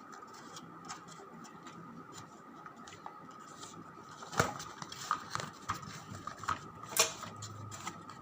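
Packaging being worked at by hand while someone struggles to open it: scattered light clicks and scrapes, with sharper knocks about four seconds in and again near seven seconds, over a faint steady tone.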